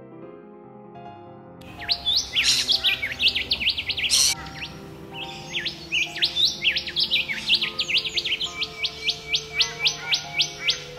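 Rufous whistler singing: loud, clear whistled notes that swoop up and down, starting about a second and a half in and settling into a fast run of sharp rising notes, about three a second. Soft piano music plays underneath.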